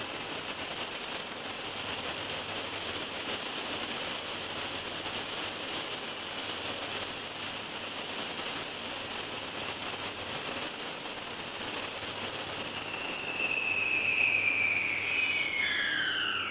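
Loud, steady high-pitched whistle of tunnel air being forced into the underground station's waiting room, pushed ahead of an express train in the tunnel. Near the end it slides down in pitch in several tones and fades.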